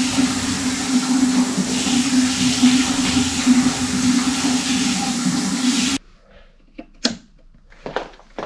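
Wind rushing over the microphone with a steady low hum under it, cutting off abruptly about six seconds in. After that come a few faint knocks and clicks.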